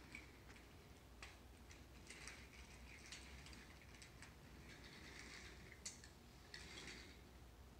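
Faint rattling of small wooden toy train cars being pushed by hand along wooden track, with scattered sharp clicks and clacks of wood on wood.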